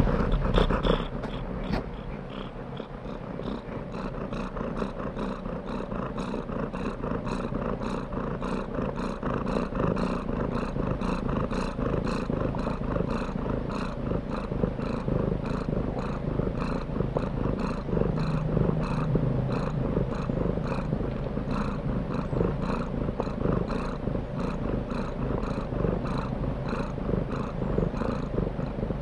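Domestic cat purring steadily and continuously, recorded close up, with a regular pulsing rhythm.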